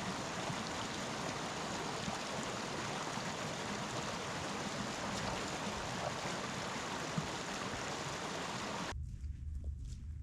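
Steady rushing of running water, like a stream. About a second before the end it cuts off abruptly, leaving a quieter low rumble with scattered small clicks.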